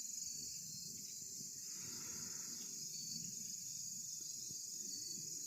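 Steady high-pitched chirring of crickets or other insects, with a faint short hiss about two seconds in.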